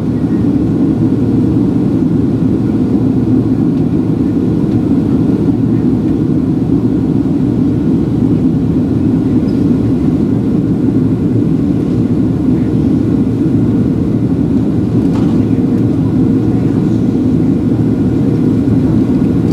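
Steady cabin noise inside a Boeing 737-700 in descent: a constant low rumble of airflow and the CFM56-7B engines, unchanging throughout.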